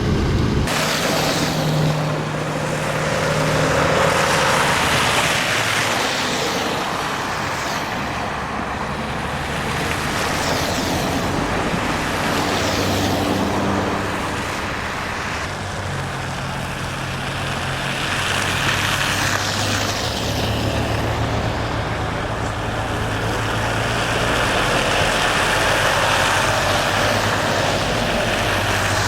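Road traffic: vehicles passing one after another, each a rising and falling rush of tyre and engine noise, over a steady low engine hum.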